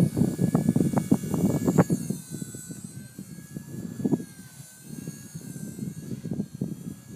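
Blade mCP X micro RC helicopter's electric motor and rotors whining at a steady, slightly wavering pitch, with strong wind buffeting the microphone in gusts that are heaviest in the first two seconds.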